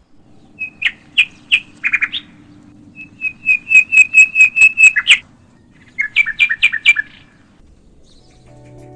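A small bird chirping in three bursts of short, sharp chirps, the middle one a quick run of about ten chirps.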